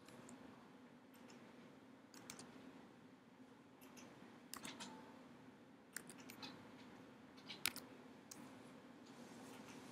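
Scattered sharp clicks and taps of a laptop's mouse and keys as a video is opened, some single and some in quick pairs or clusters, over a faint steady hum in a quiet room.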